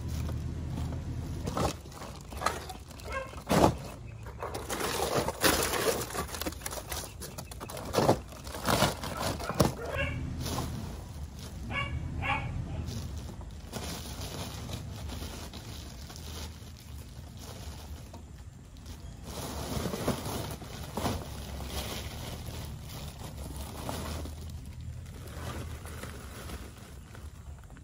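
Pieces of dry scrap wood knocking and clattering as they are loaded into plastic sacks, with the sacks rustling. The knocks are irregular and thin out in the second half.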